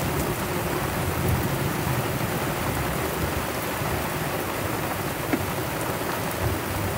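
Heavy tropical-storm rain pouring down on the sea and the anchored sailboat, a dense steady hiss with a low rumble underneath.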